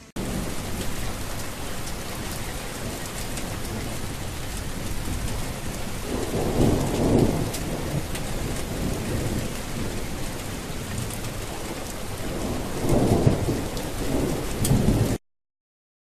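Steady heavy rain with a low roll of thunder about six seconds in and another near the end; the sound cuts off suddenly shortly before the end.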